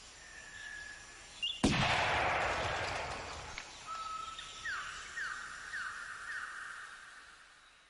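A single gunshot about a second and a half in, echoing and dying away over several seconds, among outdoor bird calls and crows cawing.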